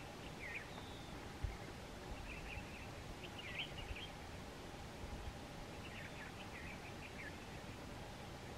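Faint steady outdoor background hiss with scattered short, high bird chirps and trills, in small clusters. A single dull low thump about a second and a half in.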